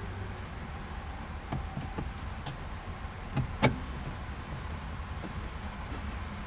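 Scattered sharp clicks and knocks of parts and tools being handled while the steering column is put back together, the loudest about two thirds of the way through. A cricket chirps faintly about once a second throughout, over a low background rumble.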